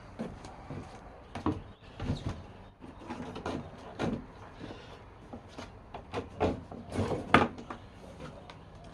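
Irregular knocks, taps and scrapes, as from metal tools being handled and worked on a bench, with the loudest knock about seven seconds in.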